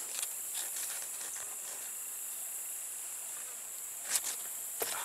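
Steady high-pitched chorus of insects in summer woodland, with two brief sharp clicks near the end.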